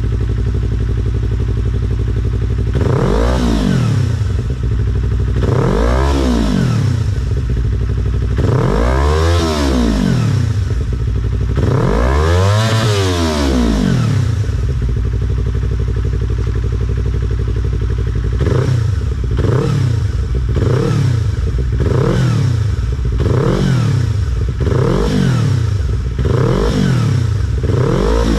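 Yamaha MT-25's 250 cc parallel-twin engine breathing through a WRX GP3 K3 SE full-system exhaust. It idles, then is revved up and let fall back four times. Near the end it is blipped in quick short revs, about one a second.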